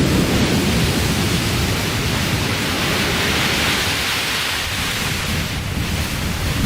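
Loud, steady rush of water with no distinct events, cutting off suddenly at the end.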